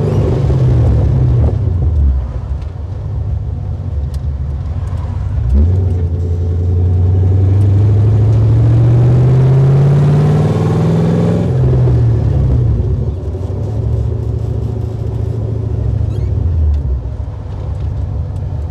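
A 1968 Camaro SS's LSX V8 engine, heard from inside the cabin while driving. Its pitch falls over the first two seconds. About five and a half seconds in it picks up and climbs steadily under acceleration for about six seconds, then drops back and settles into a steady cruise.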